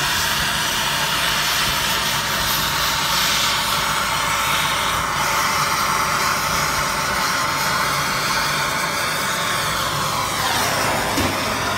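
BernzOmatic MAP-gas hand torch flame hissing steadily while it heats a cast aluminium engine case for brazing. Near the end the hiss sweeps down in pitch.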